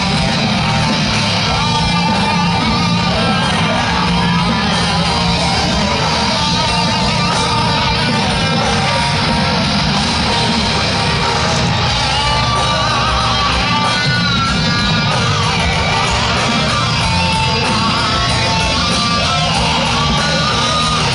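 Heavy metal band playing live, heard from the crowd: a distorted electric guitar plays a lead line with bending, wavering notes over bass guitar and drums.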